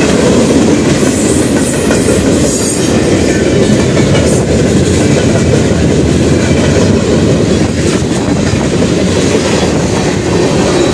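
Freight train rolling past at close range: a steady, loud rumble of freight cars on the rails, with the wheels clacking now and then.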